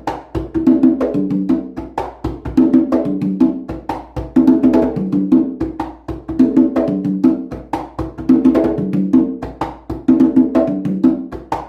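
Conga and tumbadora fitted with synthetic Bembé heads, played by hand in a steady repeating rhythm: pitched drum tones at two pitches mixed with sharp strokes, the pattern coming round about every two seconds.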